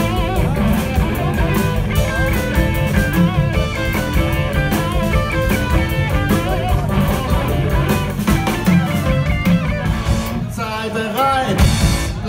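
Live rock band playing an instrumental passage: an electric guitar carries a lead line with bending notes over bass guitar and drum kit. The drums drop away about ten seconds in, and a loud hit comes just before the end.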